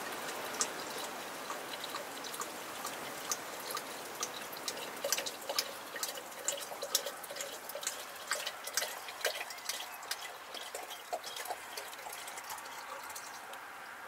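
Clear grain spirit (Korn) poured from a glass bottle into a glass jar of dandelion blossoms: a steady trickle with many small drips and splashes, busiest in the middle of the pour.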